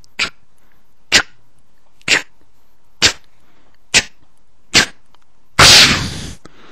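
Six short, sharp clicks about a second apart, then a loud, harsh burst of noise lasting under a second near the end.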